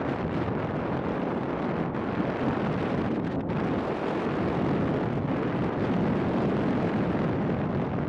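Wind buffeting the microphone of a moving motorcycle, a steady rush with the bike's running noise beneath it.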